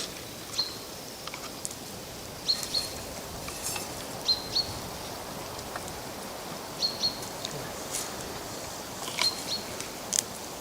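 Forest ambience: a small bird's short high chirps repeating every second or two, over a steady outdoor hiss with scattered sharp crackles from the campfire.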